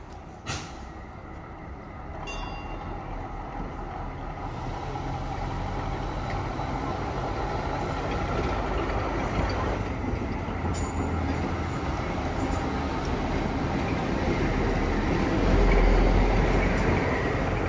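Diesel railmotor 91RM running on the rails, its engine rumble and wheel noise growing louder and peaking near the end. A single sharp click about half a second in.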